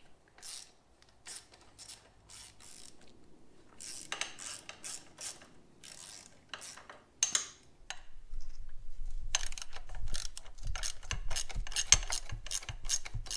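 Socket ratchet clicking as 9/16-inch bolts are loosened. A few scattered clicks at first, then fast, steady ratcheting from about eight seconds in.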